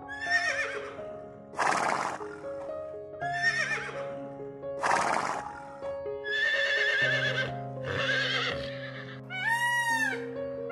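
Horses neighing, a string of about six whinnies in which warbling calls alternate with harsher, breathier ones. About nine seconds in, a peacock gives two loud, arched cries about a second apart. Background music plays steadily underneath.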